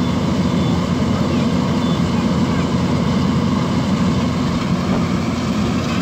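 Rice combine harvester running steadily as it cuts through the paddy, its engine and threshing machinery giving a constant low hum.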